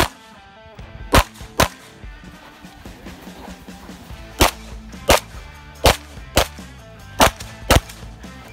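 Pistol shots fired in pairs during a practical shooting stage: a shot at the start, then four double-taps with the two shots about half a second apart and one to three seconds between pairs.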